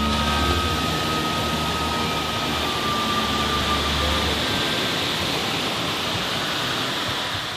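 Steady rushing wash of ocean surf. A low held musical tone underneath fades out about four and a half seconds in.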